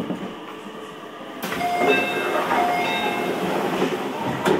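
Train sounds at a station platform. About a second and a half in, a loud hiss of noise starts suddenly and carries short squealing tones, and there is a sharp click near the end.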